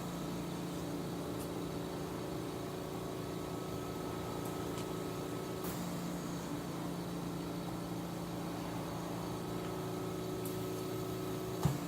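Steady machine hum made up of several steady tones, with a faint click about halfway through where the hum shifts slightly.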